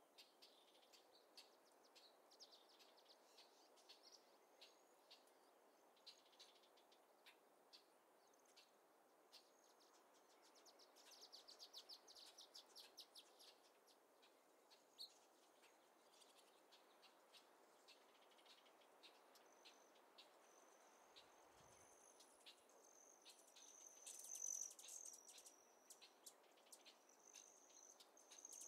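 Faint natural ambience: scattered high bird chirps over a soft hiss, with a quick trill of rapid notes a little before halfway. From about two-thirds of the way through, a thin, high, steady insect trill sets in and grows louder near the end.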